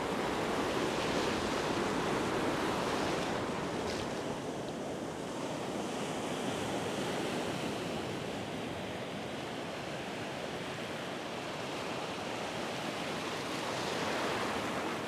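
Ocean surf breaking and washing in over a shallow sand beach: a steady rush of foaming water that swells again near the end.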